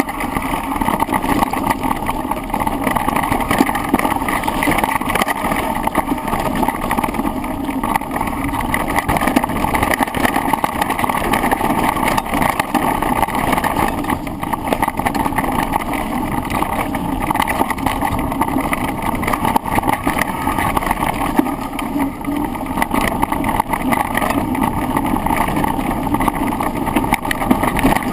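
Steady rattle, rolling noise and wind rush picked up by a handlebar-mounted camera during a fast descent, continuous and unbroken.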